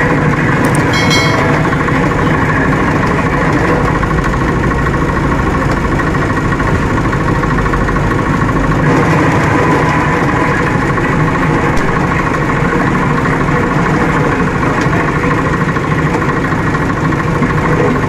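Steady, loud mechanical drone of an engine running at idle.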